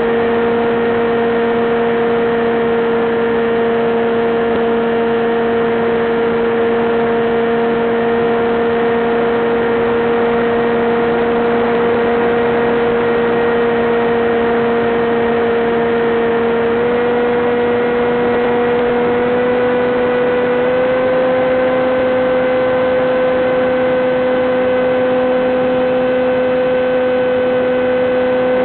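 Electric motor and propeller of a Teksumo flying-wing FPV plane, heard through the onboard camera's audio channel: a steady whine at cruise throttle that steps up slightly in pitch twice in the second half.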